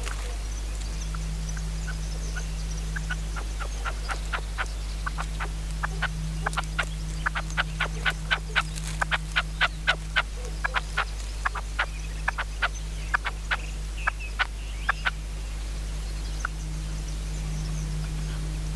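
Red-legged partridge calling: a series of short sharp notes that starts sparse, quickens to about three a second in the middle, and breaks off well before the end.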